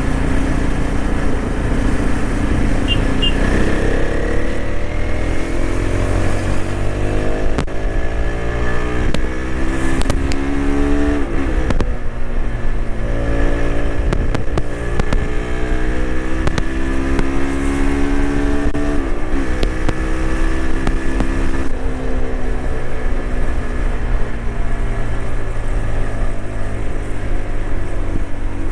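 TVS Apache RTX 300's single-cylinder engine pulling hard through the gears at highway speed. Its pitch climbs in several long rising sweeps and drops back at each upshift, over a steady low wind and road rumble.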